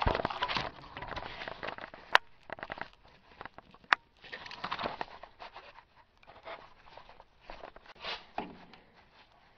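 Short bursts of an air tool running on the 12-point bolts of a driveshaft flange to remove them, with rattling metal handling noise and two sharp metallic clinks, one about two seconds in and one about four seconds in.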